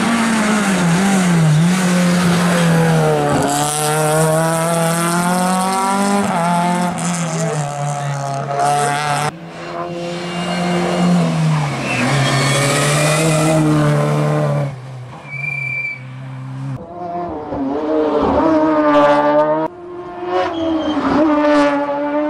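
Race cars' engines revving hard up a hillclimb course, their pitch climbing and dropping with each gear change. Several cars are heard in turn, with abrupt cuts between them.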